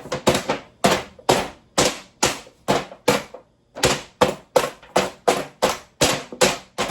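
Holes being poked in the foil covering a baking pan, a run of sharp crinkly jabs about two to three a second, with a short pause about halfway through.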